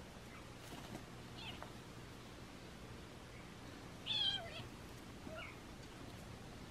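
Kitten giving a short, loud squealing meow that falls in pitch about four seconds in, with a brief fainter call a second later, while being pounced on in a play fight with another kitten.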